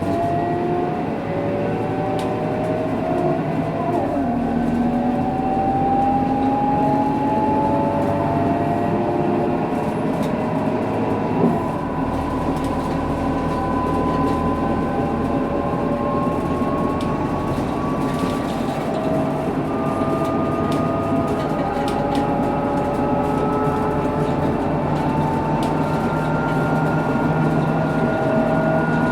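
Scania K230UB bus driving, its rear axle differential giving a strong whine over the Scania DC9 diesel. The whine rises steadily in pitch as the bus gathers speed, dropping back and climbing again a few times.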